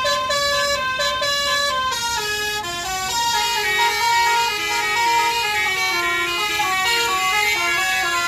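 Tour bus basuri horn, a multi-trumpet melodic 'telolet' horn, playing a tune: a run of held, brassy notes stepping up and down in pitch, several sounding at once.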